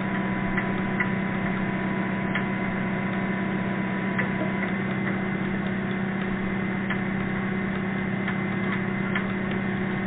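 Dredging boat noise heard underwater through a hydrophone: a steady low hum with irregular sharp ticks, roughly one a second.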